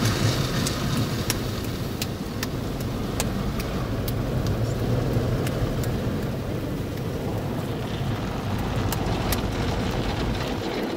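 Automatic car wash heard from inside the car: a steady low rumble with the hiss of water and soap spraying over the windshield and windows, and scattered sharp ticks against the glass.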